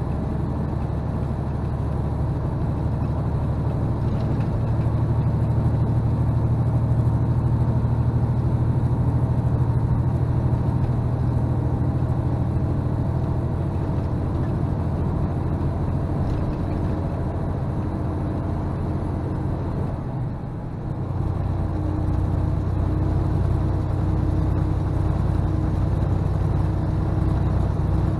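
Semi truck's diesel engine and road noise, heard from inside the cab, running steadily at highway speed. About twenty seconds in the sound dips briefly and the engine note settles at a new pitch.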